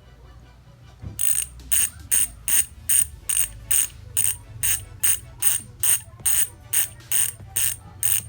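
Aeroic six-pawl bicycle hub freewheeling, its pawls ratcheting in short, evenly spaced buzzing bursts, about two and a half a second, starting about a second in.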